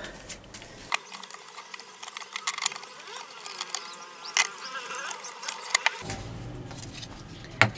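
A small hand groove plane with a narrow steel blade cutting a groove in a pine strip: a series of short scraping strokes with sharp clicks between them.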